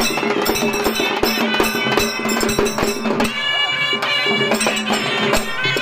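Traditional Indian folk music: a wavering reed-like melody over a steady drone, with drums beaten in a regular rhythm.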